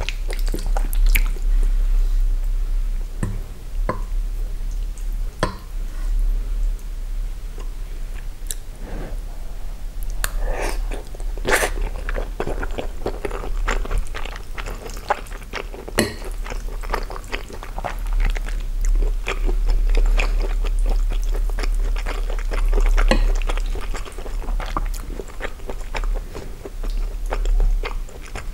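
Close-miked chewing of spaghetti with sausages and melted cheese: irregular wet mouth noises and many small clicks, over a steady low hum.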